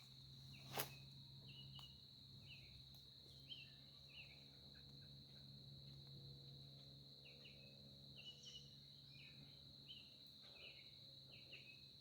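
Faint woodland ambience near silence: a steady high-pitched insect drone with scattered short chirps over it, and one sharp click about a second in.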